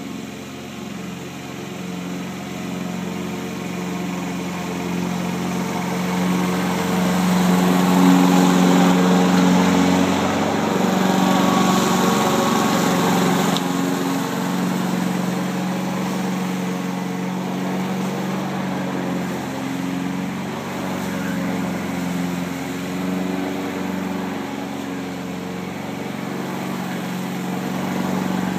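Small petrol engine of a walk-behind push lawn mower running steadily at an even pitch while mowing. It grows louder as the mower comes near, is loudest about eight to ten seconds in, and then fades gradually as it moves away.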